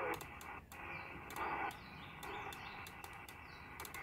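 President Grant AM-SSB CB transceiver receiving band noise through its speaker, with faint snatches of signal fading in and out as it is tuned across the band. Over it comes a quick run of sharp clicks from the detented channel selector stepping from channel to channel.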